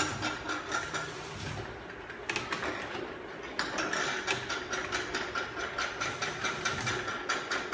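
Automatic bottle labeling machine running: a steady whine under quick mechanical clicking and clattering from the conveyor and labeling mechanism. The clicking thins out briefly about two seconds in, then comes back denser at about five clicks a second.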